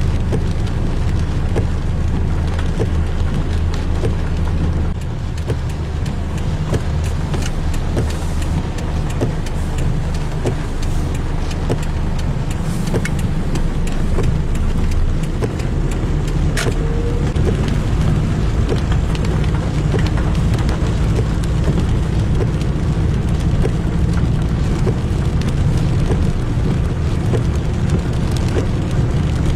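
Cabin noise of a car driving in heavy rain: a steady low rumble from engine and tyres on the wet road, with many raindrops ticking on the windscreen and body.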